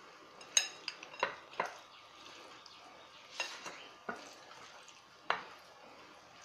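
A spoon clinking against a bowl in about eight light, irregularly spaced knocks while raw chicken pieces are mixed with lemon juice and salt.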